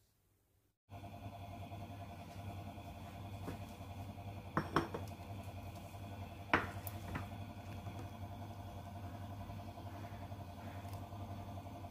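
Steady low hum and hiss of a gas stove burner under a frying pan of oil, starting about a second in, with a few light clinks in the middle, the sharpest one about two-thirds of the way through.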